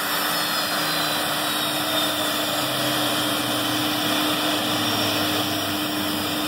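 SkyWest regional jet's turbofan engines running with a steady roar and low hum, a high whine slowly falling in pitch as the engines wind down after landing.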